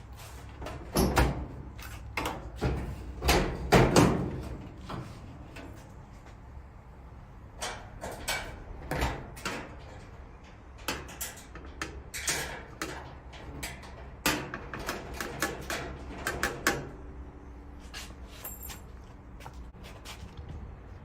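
Sheet-metal clunks and knocks from a dryer's front panel being lifted, hooked onto the cabinet clips and seated against the drum. The loudest bangs come in the first few seconds, with further bursts of rattling knocks later on.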